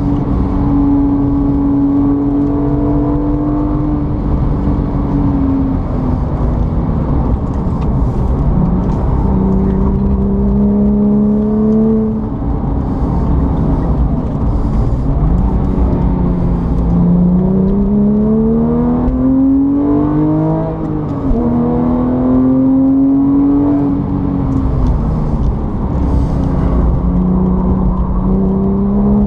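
A motor running steadily, its hum rising and falling slowly in pitch every few seconds as its speed changes.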